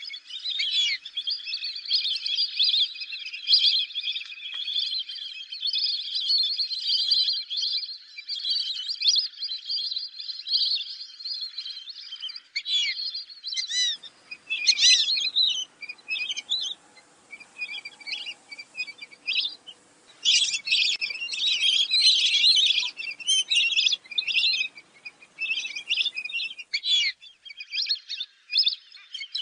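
Fulvous whistling ducks calling: many high, squeaky whistles overlapping in a near-continuous chatter. A faint low background noise comes in about halfway through and drops out a few seconds before the end.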